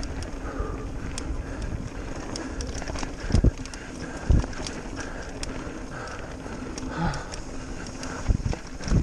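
Mountain bike ridden fast down a dirt trail: tyres rumbling over the ground with the bike rattling and ticking, and a few heavy thumps over bumps, about three and a half seconds in, a second later, and near the end.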